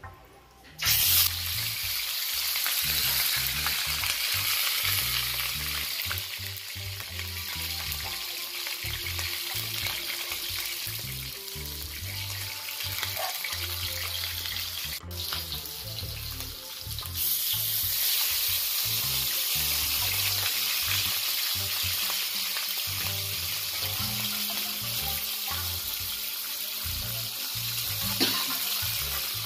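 Seasoned fish frying in hot oil, a loud steady sizzle that starts suddenly about a second in and grows louder again just past halfway, as fish go into the hot oil. Background music with a low beat underneath.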